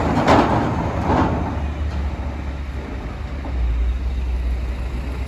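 Heavy diesel cargo truck running slowly across a ferry's steel ramp, a steady low engine rumble, with some clatter in the first second.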